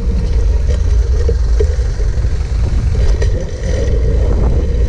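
Steady low rumble of road noise with a few light clicks.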